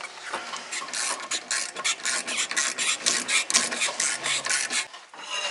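Rapid rasping, scraping strokes in quick succession, like a hand tool worked against metal, stopping about five seconds in.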